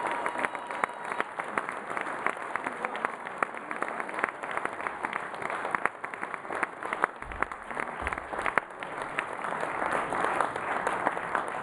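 Audience applauding: dense hand-clapping with some sharp individual claps close by.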